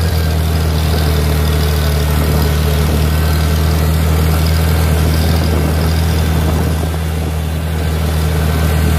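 Gasoline engine of a Farmall tractor running at a steady speed under way in high gear, in direct drive with the torque amplifier not engaged.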